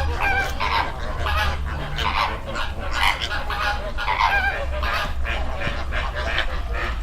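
A flock of American flamingos honking, with many short goose-like calls overlapping throughout, over a steady low rumble.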